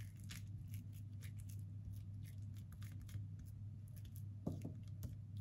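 Faint scraping and soft squishing of a metal spoon spreading fish paste onto a banana leaf, with a light knock about four and a half seconds in, over a low steady hum.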